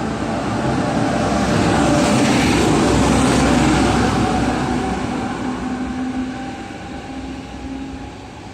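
Taiwan Railways push-pull (PP) Tze-Chiang express train pulling out of a station and running past. The rumble of wheels on rail swells to its loudest about two to four seconds in, then fades as the train draws away, leaving a steady hum.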